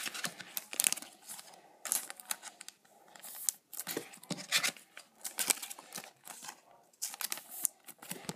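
Thin clear plastic trading-card sleeves crinkling and rustling in short, irregular bursts as trading cards are handled and slid into them.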